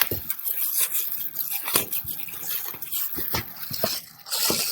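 Packaging rustling and crinkling with scattered small knocks as the soundbar's main unit is taken out of its box.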